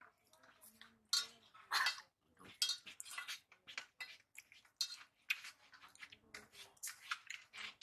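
Fingers scraping and tapping on steel plates as rice and curry are mixed and eaten by hand: a string of short, uneven scrapes and clinks.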